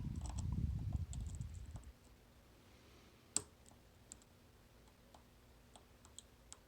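A low rumble of handling noise for about the first two seconds, then a few scattered sharp clicks: a homemade dimple pick setting the pins of a 9-pin dimple lock under tension. The loudest click comes about halfway through.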